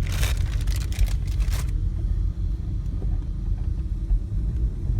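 Car being driven, a steady low rumble heard from inside the car, with a rushing hiss over it for the first second and a half or so.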